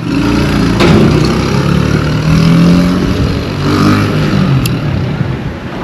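A motor vehicle engine running close by as it passes, its pitch shifting and loudest about two to three seconds in, then fading.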